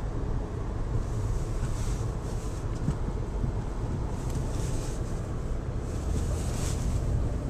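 A car driving on snowy streets: a steady low rumble of engine and road noise, with brief hissing swishes about two, four and a half and six and a half seconds in.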